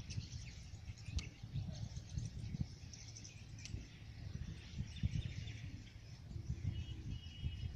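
Outdoor ambience: birds chirping faintly, with a few short high notes near the end, over an uneven low rumble.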